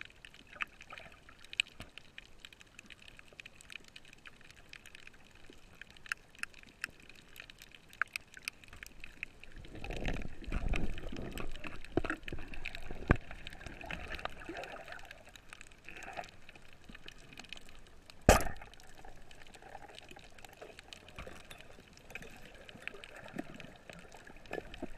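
Underwater coral-reef sound heard through a camera housing: a steady crackle of tiny clicks, typical of snapping shrimp, with water rushing and bubbling from about ten to sixteen seconds in. One sharp, loud knock about eighteen seconds in is the speargun firing its spear.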